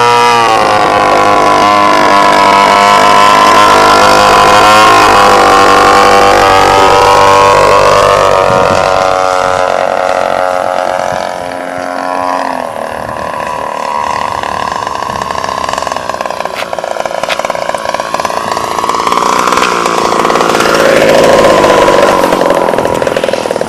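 Motor and propeller of an RC Extra aerobatic model plane in flight, a steady pitched drone whose pitch rises and falls repeatedly. Loudest in the first part, it drops about halfway through, swells again near the end and then fades.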